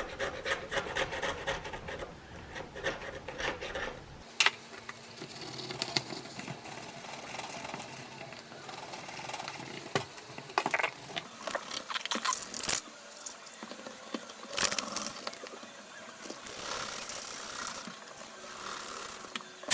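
Irregular scraping and rubbing of a tool against the iPad's frame as leftover screen glue is cleaned off, with scattered sharp clicks and taps.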